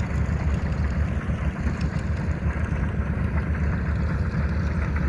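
Steady low engine rumble on the water, even and unbroken.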